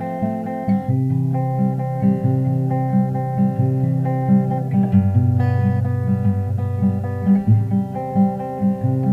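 Background music led by a plucked acoustic guitar, with a steady bass line underneath.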